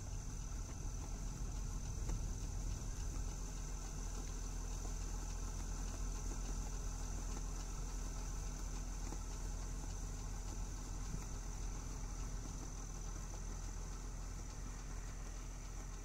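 An engine running steadily at an even pitch, with a constant low rumble and a thin, steady high tone above it.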